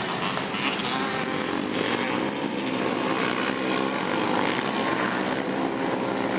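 Engines of a pack of three-wheeler ATVs racing on a dirt track, several engines revving and overlapping at once.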